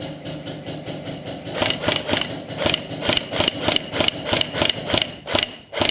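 Airsoft gun firing a rapid string of shots, about five or six a second, each a sharp crack; the shots get louder about a second and a half in and stop just before the end.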